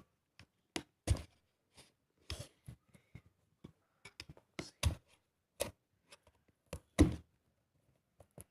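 Smartwatch's cardboard box being handled and cut open at its sealing stickers: a string of short knocks, taps and scrapes with gaps between, the loudest about a second in and about seven seconds in.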